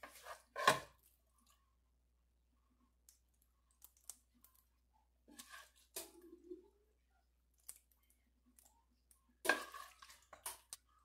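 Wooden spoon scraping and tapping in a frying pan as cooked ground meat is scooped out and dropped into a glass baking dish. There are sparse small clicks and louder knocks about a second in, around six seconds, and near the end.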